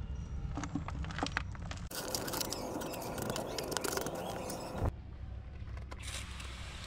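Soil being tipped and spread into a tub: gritty scraping and pattering with scattered clicks, denser for a few seconds in the middle before cutting off abruptly.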